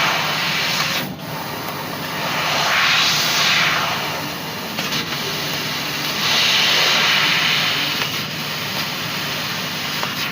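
CNC laser cutting machine running: a steady drone under a rushing gas hiss that swells louder three times, about a second apart, over several seconds.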